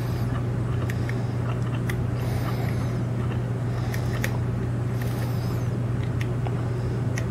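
Steady low hum over a constant background noise, with faint, light clicks scattered every second or so as a lock pick works the pins of a seven-pin Scandinavian oval cylinder lock sitting in a false set.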